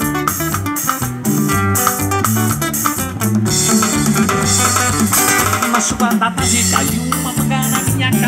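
A live band plays an instrumental passage: strummed acoustic guitar and electric bass over a steady beat from drums and cymbals, with no singing.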